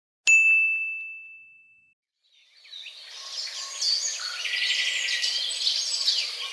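A single bright ding that rings on one clear tone and fades out over about a second and a half. From about halfway in, birds chirping and singing, many short chirps and trills.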